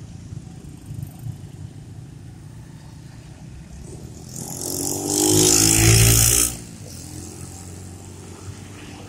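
Motorcycles and motor scooters riding past at low speed, their small engines running. One passes close by, building up over about a second and loud for about two seconds, then drops away suddenly.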